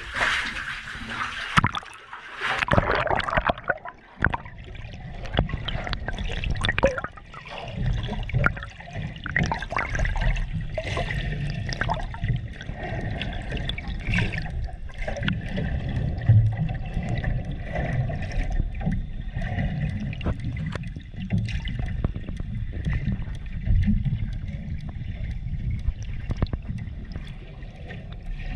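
Seawater sloshing and gurgling, with an irregular low rumble and scattered clicks throughout.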